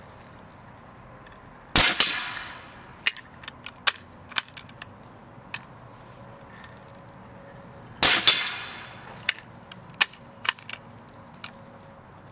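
Homemade .50 caliber QEV compressed-air cannon fired twice, about six seconds apart: each shot is a sudden sharp blast of released gas with a brief hissing tail. A few short, sharp clicks and pings follow each shot.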